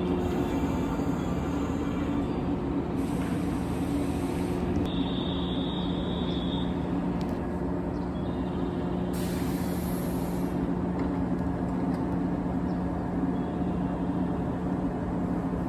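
JR 115 series electric train at the platform, giving off a steady low hum from its onboard equipment. A brief high steady tone sounds about five seconds in and lasts about two seconds.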